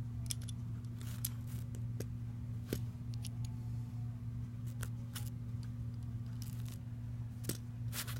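Plastic LEGO bricks being handled and pressed together: irregular sharp clicks and taps, roughly one or two a second, over a steady low hum.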